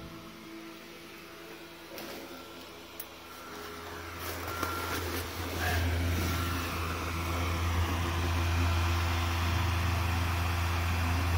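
Small electric blower fan in the base of an inflatable yard decoration running steadily, its low hum growing louder from about four seconds in.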